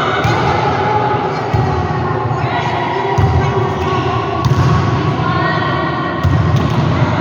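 A volleyball thumping off hands and the court floor several times, with people's voices in the background.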